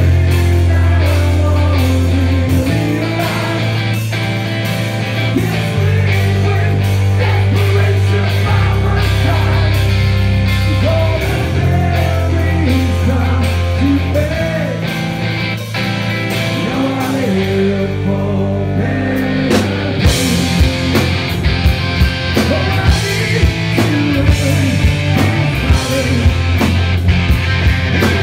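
Melodic hardcore band playing live: a singer over electric guitars and long held bass notes, then about two-thirds of the way through the drums come in hard with a fast, steady beat.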